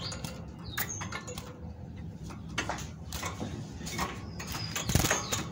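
A great tit moving about a wire cage: irregular clicks and rattles of its feet and wings on the wire and perch, the loudest knock near the end, with a few brief faint high chirps.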